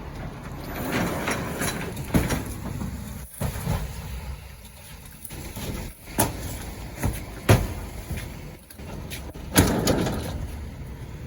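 Delivery gear being handled, with a run of sharp knocks and clunks over a steady low rumble; the loudest clunks come about seven and a half and nine and a half seconds in.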